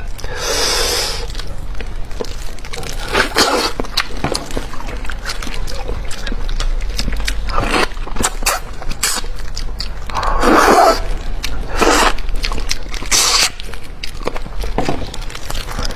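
Close-miked eating sounds from a large cooked fish head: sucking, slurping and chewing, with many small clicks and scrapes and a few louder wet slurps.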